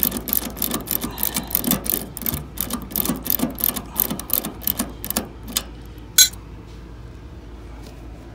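Ratcheting service-valve wrench clicking rapidly as it turns the hex stem of an air conditioner's suction-line service valve open. The clicking stops a little over five seconds in, and one sharp click follows about a second later.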